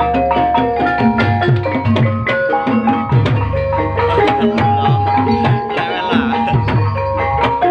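Gamelan ensemble accompanying an ebeg trance dance: metallophone and gong tones ring over a steady beat of hand-drum strokes.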